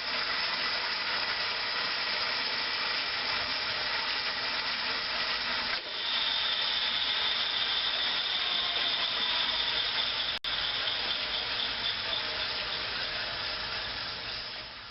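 A Baxter Machine Co. No. 3 36-inch band saw, driven by a 3 hp single-phase electric motor, running steadily with a hissing mechanical noise. After a short break about six seconds in, a steady high whine rides on top, and the sound fades out at the end.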